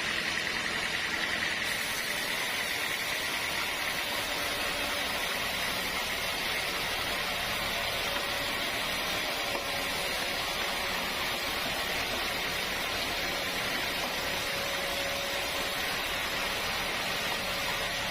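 Sawmill machinery running steadily, a continuous mechanical hiss and hum with no distinct strokes or breaks.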